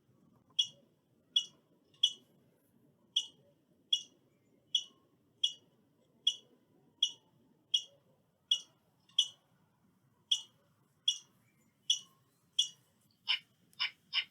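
Squirrel calling: a steady run of short, high chirps, a little over one a second, which grow louder and quicker near the end.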